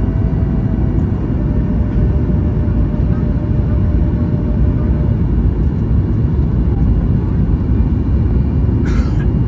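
Steady low rumble of a Boeing 737 MAX 8's engines and airflow heard from inside the cabin. A brief sharp sound, like a click or knock, comes about nine seconds in.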